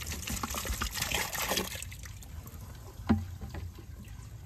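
Pool antifreeze poured from a plastic jug into a pool skimmer, splashing and trickling onto the skimmer plug and the water, stopping about two seconds in. A single sharp knock follows about three seconds in.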